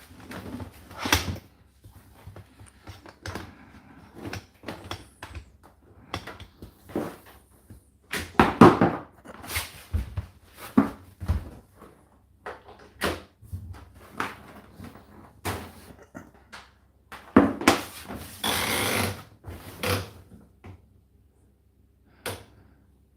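A string of irregular knocks, clicks and thuds with quiet gaps between them, and a loud rushing burst lasting about two seconds about three quarters of the way through.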